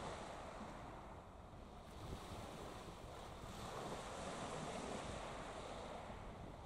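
Wind on the microphone and waves washing on the shore: a steady rushing that slowly swells and eases.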